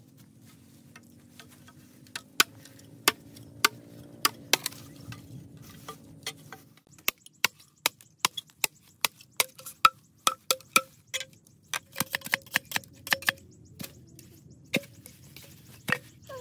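Machete chopping green bamboo: a long series of sharp strikes, coming faster after the first few seconds at about two a second, some of them with a short hollow ring from the bamboo.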